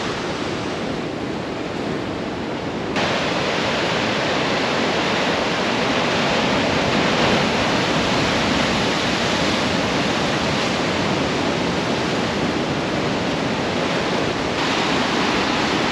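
Steady rush of ocean surf mixed with wind. It steps up abruptly and gets louder about three seconds in.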